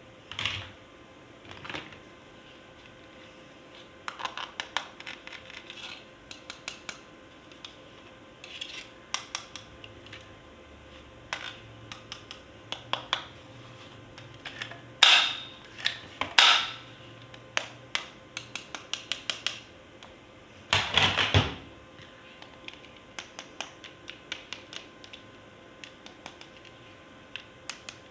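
Plastic toy parts and packaging being handled: an irregular run of light clicks and taps, with a few louder knocks and a short, dense clatter about two-thirds of the way through.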